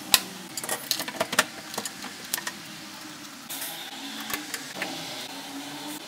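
Sharp plastic clicks and knocks from handling a front-load washing machine's detergent drawer and casing, the loudest a single click just after the start, then scattered clicks for a couple of seconds, then faint steady hiss with a few light ticks.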